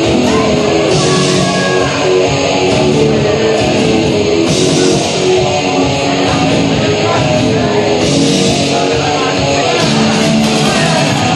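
Loud rock music with electric guitar, and crash cymbal splashes about every three to four seconds.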